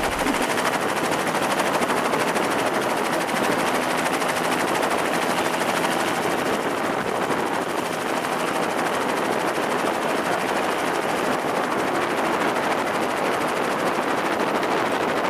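Steady, dense crackling hiss at an even level.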